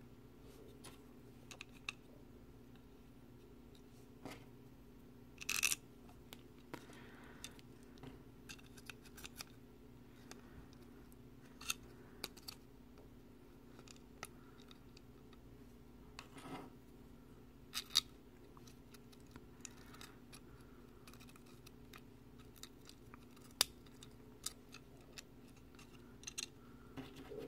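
Scattered small clicks and light taps of spacers being fitted onto a circuit board by hand, with a short scrape about five seconds in, over a faint steady hum.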